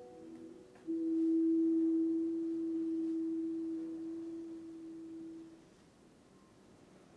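A single sustained electric guitar note, almost a pure tone, sounded about a second in and slowly dying away over about five seconds, with a fainter higher note ringing alongside it.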